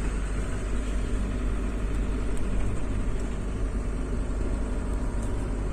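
Camper van driving, its engine and road noise a steady low rumble heard from inside the cab.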